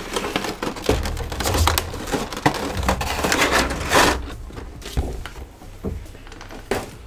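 Cardboard box and clear plastic blister tray being handled as the tray is lifted out: crinkling, rustling and scraping of plastic and card, with small knocks, thinning out near the end.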